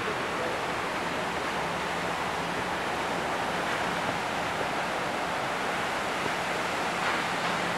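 Multnomah Falls rushing steadily, the water plunging from the cliff into its pool in an unbroken noise of falling water.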